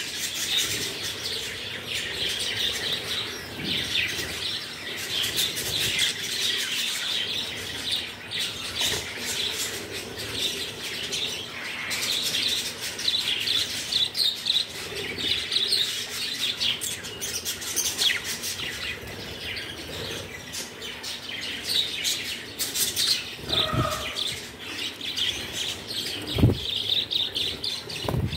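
A flock of budgerigars chirping continuously in a dense chorus, with wings flapping as birds land on and leave the feeder. A sharp knock near the end.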